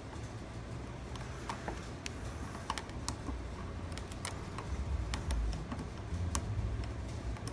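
Irregular light clicks and ticks of metal tools working in the pin holes of a bubblegum machine lock cylinder, over a low handling rumble. The cylinder's pins are jammed.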